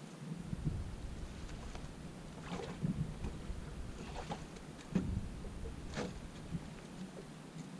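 Water splashing at the rocky shoreline as a hooked northern pike is drawn in and lifted out, with several sharp splashes or knocks over a low rumble.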